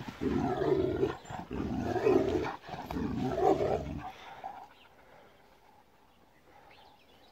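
Young Kangal dog growling while it mouths a person's hand and leash, a play growl: three long, low growls in the first four seconds.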